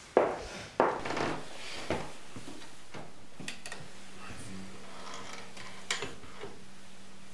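Two sharp knocks near the start, then light clicks and handling noise from a retro-style record player as its lid is lifted. A low steady hum comes on about halfway through.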